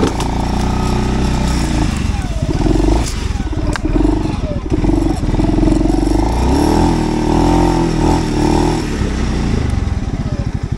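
Segway Snarler AT6L 570cc 4x4 ATV engine working under load, its revs rising and falling as the quad clambers over a steep, rough forest obstacle with its front right wheel lifted off the ground. There are a couple of sharp knocks and some clatter about three to four seconds in.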